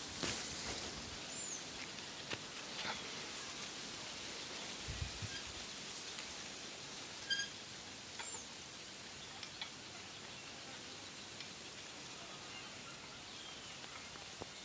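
Outdoor ambience with a steady high hiss, a few short bird chirps and scattered light clicks and knocks. A short high squeak about seven seconds in is the loudest moment.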